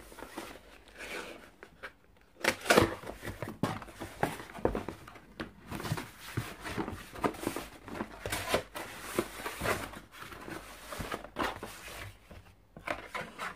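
A cardboard box and its paper packing being torn open and handled: irregular rustling, crinkling and tearing with small knocks, loudest about two and a half seconds in.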